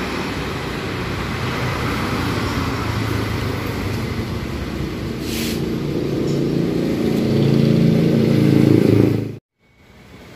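Road traffic passing close by: a motor vehicle's engine grows louder over the last few seconds, then the sound cuts off abruptly near the end.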